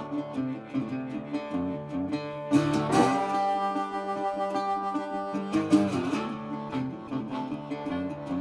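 Instrumental down-and-dirty blues: a harmonica played cupped around a handheld microphone wails sustained, bending notes over a fingerpicked resonator guitar's steady low rhythm. The loudest harmonica phrases come about two and a half seconds in and again near six seconds.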